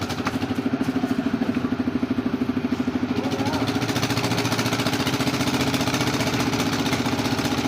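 An engine running steadily at a low idle, with a fast, even throb of about eight beats a second.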